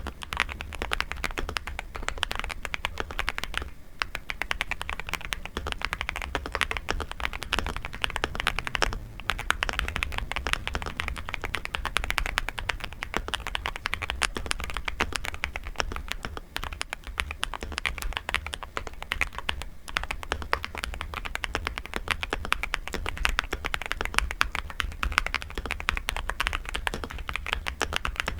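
Fast, continuous typing on a Nuphy Gem 80 mechanical keyboard, a dense run of key clacks with brief pauses about 4 and 9 seconds in.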